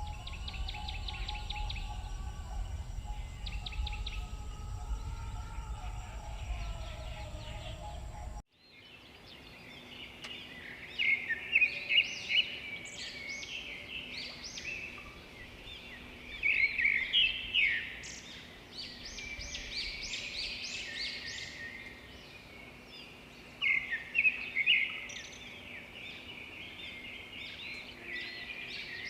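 Songbirds singing, with repeated phrases and loud bursts of song coming again and again. Before an abrupt cut about eight seconds in, a low rumble with short rapid trills is heard instead.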